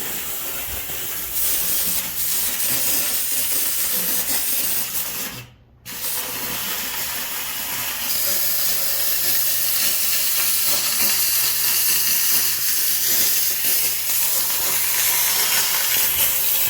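McCulloch MC1385 canister steam cleaner jetting steam from its nozzle: a steady hiss that cuts off briefly about five and a half seconds in, then resumes a little louder.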